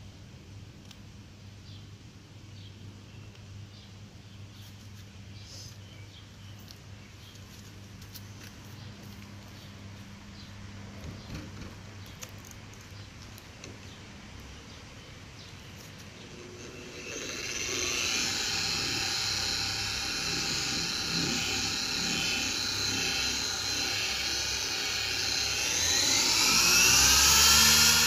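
Electric car polisher running on car paint, spreading and working in an all-in-one polish. It is quiet at first, then a loud steady motor whine starts a little past halfway, and near the end the whine rises in pitch as the polisher speeds up.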